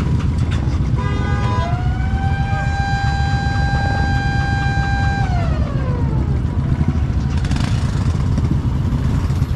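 Low, steady rumble of motorcycles with a horn sounding: a few short beeps about a second in, then a tone that slides up in pitch, holds for about three seconds and slides back down.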